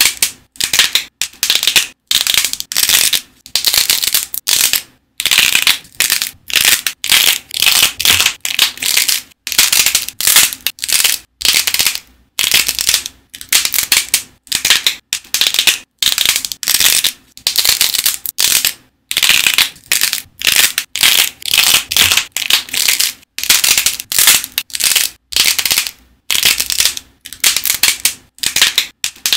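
Dried clay with a glossy hard coating cracking and crunching as thumbs squeeze and press it. It comes in short crisp bursts, one or two a second, with quiet pauses between.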